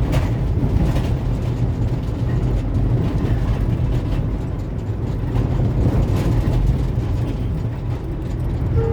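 Steady low rumble of a road vehicle's engine and tyres in motion, with a short horn beep near the end.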